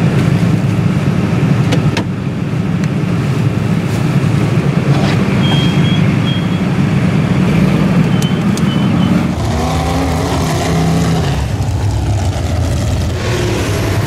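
Engines of off-road vehicles, ATVs and lifted mud trucks, rumbling loudly, with the mix of engine sounds shifting about nine and a half seconds in. A few short high squeaks cut through in the middle.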